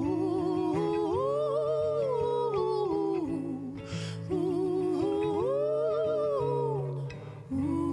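Song with wordless singing over a steady low accompaniment, in two long vocal phrases that each rise and then fall back.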